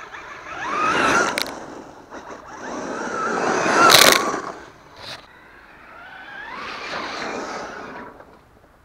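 Electric RC short-course trucks driving past close by, three passes, each a motor whine that swells and fades, rising then falling in pitch as it goes by. The loudest pass is about four seconds in, with a hiss of tyres throwing up dirt.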